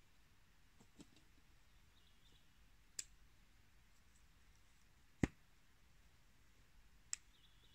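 A hatchet driven into a wooden chopping block: one solid knock about five seconds in, with a few lighter sharp clicks before and after.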